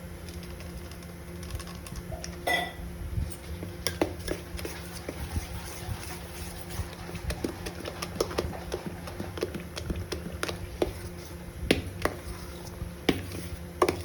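Kitchen work: scattered light clicks and taps of utensils, a few sharper knocks among them, over a steady low hum.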